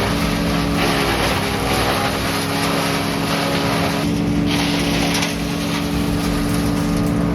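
Engine of a wood-shredding machine running steadily at a constant pitch, with a loud rushing noise of wood being shredded over it that swells and drops.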